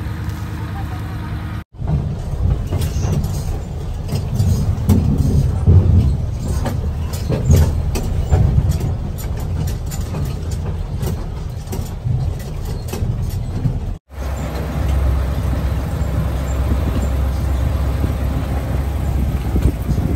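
A low, steady engine rumble, like a vehicle running, with scattered clicks and knocks over it; the sound cuts out abruptly twice.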